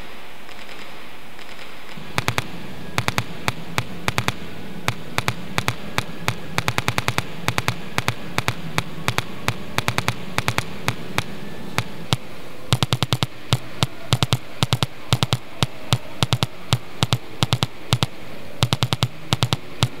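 Small loudspeakers with dried leaves and insects lying on their cones, pulsed by Morse-code signals: sharp clicks in short and long uneven groups, starting about two seconds in over a steady hiss, with a low hum under the clicks for the first half.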